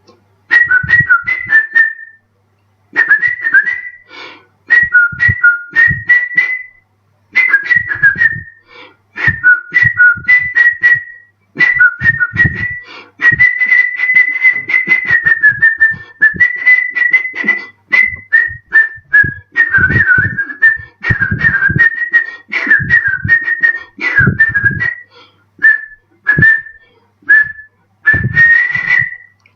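A man whistling a melody through pursed lips, in phrases of a few seconds broken by short pauses, the tune moving within a narrow high range.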